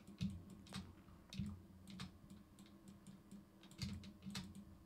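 Faint, irregular clicks and taps of a computer keyboard and mouse, about half a dozen in a few seconds.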